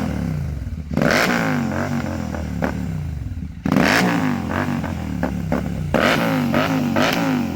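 Royal Enfield Continental GT 650's parallel-twin engine revved through a Red Rooster aftermarket exhaust. It gives three sharp throttle blips about two and a half seconds apart, and each time the revs fall back there is popping and crackling on the overrun.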